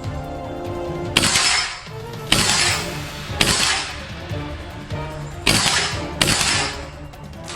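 Gas-blowback airsoft Dragunov (WE SVD) firing five single shots, each a sharp report that trails off quickly, over background music.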